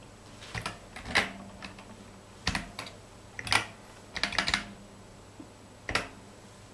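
Keys being pressed on a ZX Spectrum keyboard: short clicks in small uneven clusters as a command is typed in, ending with a single press of Enter about six seconds in.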